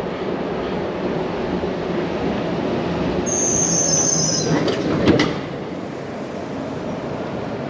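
Steady rumble of heavy vehicles and machinery at a construction zone. About three seconds in comes a brief high-pitched squeal, slightly falling, like brakes, and just after it a sharp metallic clank.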